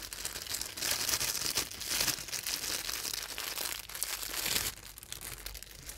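Synthetic fly-tying fibres (fluoro yellow blended with Tiger hair) being pulled apart and mixed by hand, a dense crinkling rustle that dies down near the end.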